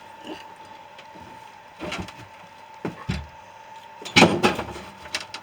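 Scattered knocks and clatter of parts and tools being handled and set down, with a louder burst of clattering about four seconds in.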